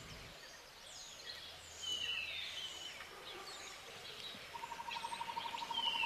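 Faint tropical bird chorus: scattered short falling whistles and chirps, joined about two-thirds of the way in by a fast, even trill held at one pitch.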